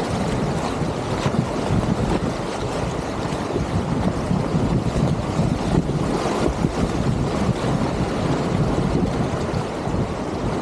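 Whitewater rapids rushing steadily, with wind buffeting the action camera's microphone.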